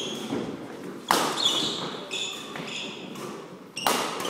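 Badminton shuttlecock struck hard by rackets twice, about a second in and near the end, each hit ringing out in the hall. Short high squeaks of court shoes on the wooden floor come between the hits.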